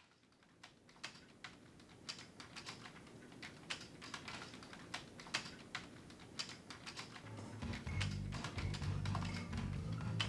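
Typing on a computer keyboard: irregular key clicks that grow gradually louder, with low music coming in about eight seconds in.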